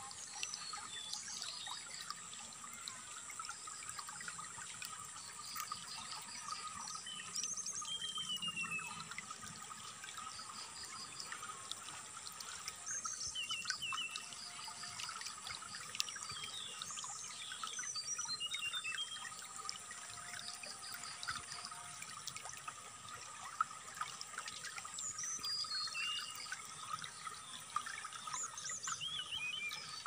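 Flowing water trickling steadily, with short chirping and trilling song phrases of a brown-chested jungle flycatcher (SRDC) coming every few seconds over it.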